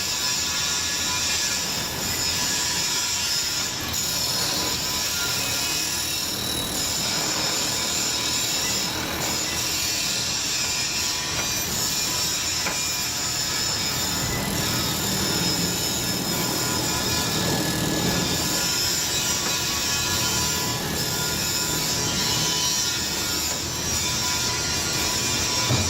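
Heavy-duty foundry wheel grinders grinding metal castings: a steady, continuous grinding noise with a strong high hiss.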